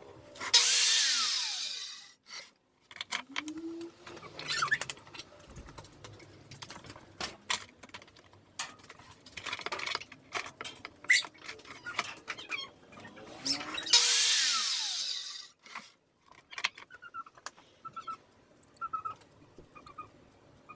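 Corded Bosch circular saw making two short cuts through MDF, about 13 seconds apart. Each cut lasts about a second and a half and ends with a falling whine as the blade winds down. These are test cuts for a five-cut squareness check, with clicks and handling of the cut pieces in between.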